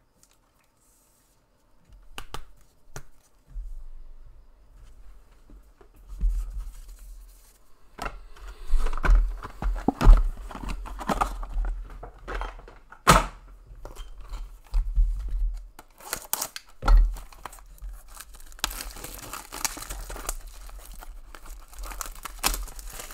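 Plastic wrapping on a sealed box of trading cards being torn and crinkled as the box is opened, starting about two seconds in. It is mixed with handling knocks and dull thumps of cardboard on the desk, and a couple of sharper knocks.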